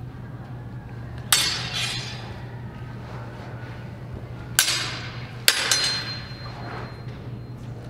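Steel two-handed swords (spadoni) clashing blade on blade in a fencing exchange: one ringing clash about a second in, then three more in quick succession around the middle, each ringing briefly.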